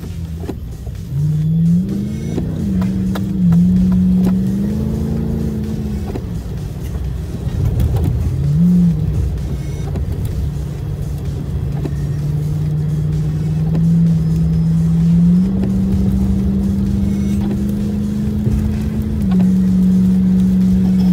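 Cabin noise of a car driving on wet roads in heavy rain: low road and engine rumble, with a steady low hum that holds one pitch for several seconds at a time and jumps up or down in steps.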